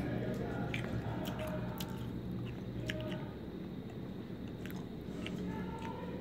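Someone chewing pomegranate arils, the hard seeds inside cracking in scattered small crunches and clicks, over a steady low hum.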